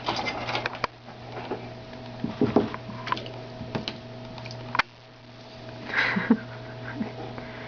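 Scattered light clicks and small knocks from a toddler handling the dishes and rack of an open dishwasher, over a steady electrical hum. A brief louder rustle comes about six seconds in.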